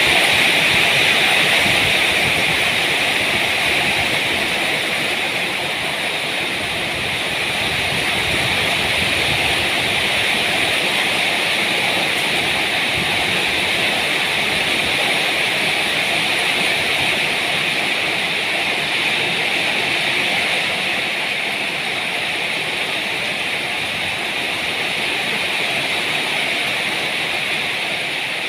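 Heavy rain pouring down steadily, a dense, unbroken hiss of downpour.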